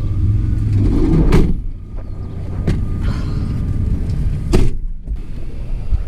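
A vehicle engine running with a steady low hum, with a few sharp knocks and clunks, the loudest about four and a half seconds in.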